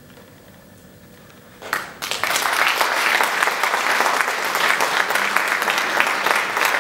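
A short hush after a choir's song ends, then audience applause breaks out sharply about two seconds in and carries on steadily.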